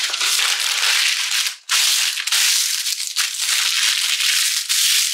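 Unbleached parchment paper being crumpled and scrunched by hand: a loud, continuous crackling crinkle with a brief break about a second and a half in.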